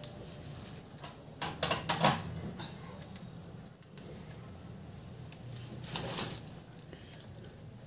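Quiet room tone with a quick cluster of small sharp clicks about one and a half to two seconds in, and a softer rustle around six seconds.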